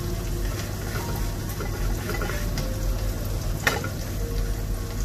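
Maize-flour roti sizzling on a hot griddle (tawa), a steady frying hiss, with a sharp click about three and a half seconds in.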